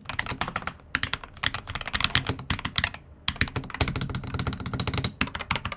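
Typing on a Corsair K70 RGB TKL OPX keyboard with lubed OPX linear switches: fast, dense keystrokes, with short pauses about a second in and around three seconds in.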